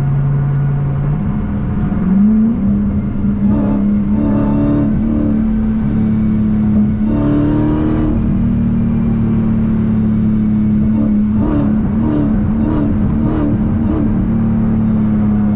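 Dodge Challenger Hellcat's supercharged 6.2-litre V8, heard from inside the cabin, rising in pitch about a second in as it accelerates, then running steadily at higher revs.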